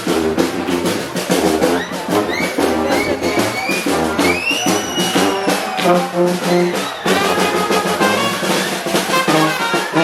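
Street brass band playing a Balkan čoček: trumpets and trombones over a driving drum beat, with a high lead line that slides up into held notes.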